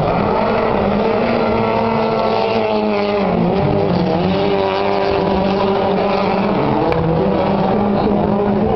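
Rally car engines revving hard as the cars race around the arena circuit, the pitch rising and falling through the corners with a clear dip about three seconds in before climbing again.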